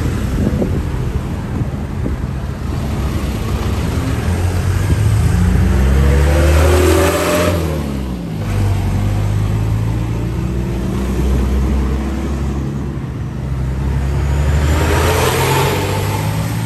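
Road traffic passing close by: a car and small trucks going by one after another, engines running with their pitch rising and falling as they pass. The loudest is a truck passing right alongside about seven seconds in, with another truck passing near the end.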